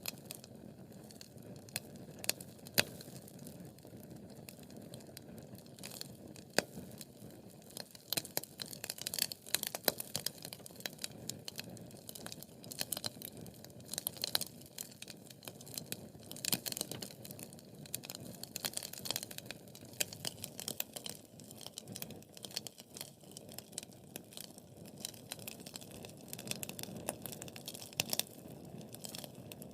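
Wood fire burning in a fireplace: a steady low rush of flames with frequent sharp, irregular crackles and pops from the burning logs.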